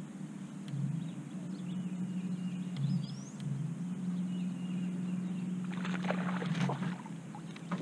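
Electric bow-mounted trolling motor humming at a low steady pitch that steps up and down as its speed is changed. A short noisy burst sounds about six seconds in.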